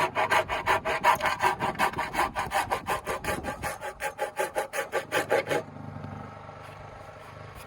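Handsaw cutting into a wooden rafter for a bird mouth notch, in quick, even back-and-forth strokes that stop about five and a half seconds in.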